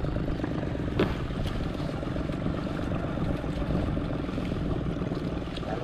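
Small boat engine running steadily with an even hum, and a single knock about a second in.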